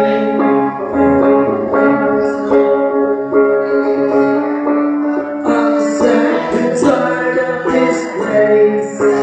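Live acoustic band music led by guitar, with a singing voice.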